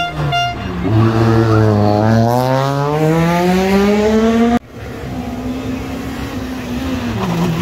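Rally car engine pulling hard out of a tight turn, its pitch climbing steadily for about three and a half seconds as it accelerates away. It cuts off abruptly, then another rally car engine is heard running steady and dropping in pitch as that car slows near the end. A short horn toot sounds at the very start.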